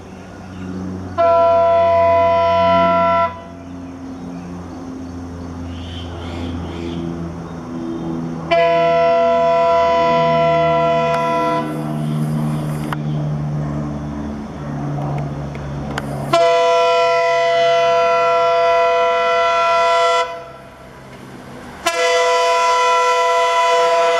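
WDM-3A diesel locomotive sounding its horn in four long, steady blasts, the later ones falling slightly in pitch as they end. The locomotive's diesel engine runs low beneath and between the blasts.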